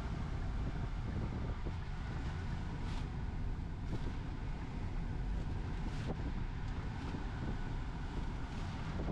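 Hyundai Alcazar diesel SUV driving, heard from inside the cabin: a steady low rumble of engine and road noise. There are a few faint clicks.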